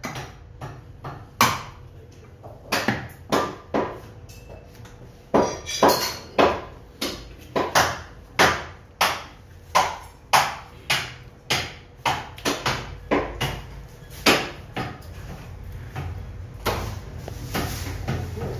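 Butcher's knife knocking against a wooden tree-stump chopping block while slicing beef, in sharp knocks about two a second, with a brief lull a few seconds in.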